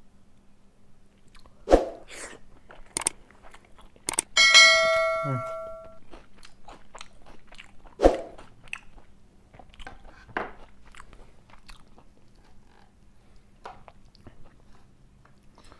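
Close-up eating sounds of fried pomfret being chewed, with scattered clicks and mouth noises and a few louder bites. About four seconds in, one clear ringing ding fades away over a second or so.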